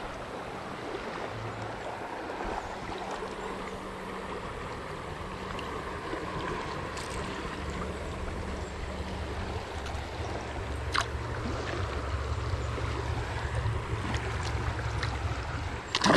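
Steady rush of flowing river water, with a low rumble that grows stronger about two-thirds of the way through and a couple of faint ticks.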